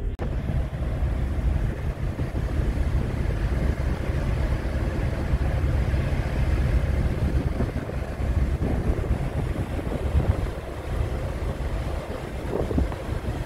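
Storm-force wind buffeting the microphone on a ship's open deck: a heavy, uneven rumble with a rushing hiss over it.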